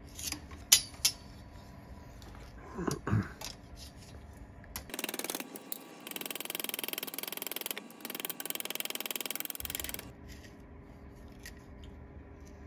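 Small pointed body hammer tapping a stainless steel drip rail molding backed by a bench vise, planishing out dents. A few single sharp taps come near the start, then a fast, dense run of light taps for about five seconds in the middle.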